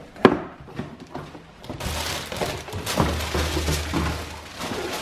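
A sharp knock of the cardboard shoe box about a quarter second in, then crinkling and rustling of paper as the box is opened and its tissue-paper wrapping handled.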